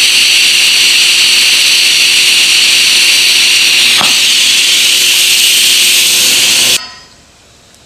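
TIG welding arc hissing steadily during a fusion pass with no filler wire added, then cutting off suddenly about seven seconds in when the arc is broken.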